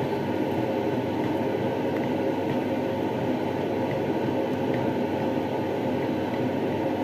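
A steady rushing kitchen noise, with a wooden spoon stirring glutinous rice in coconut milk in a stainless-steel pot and a few faint ticks of the spoon against the pot.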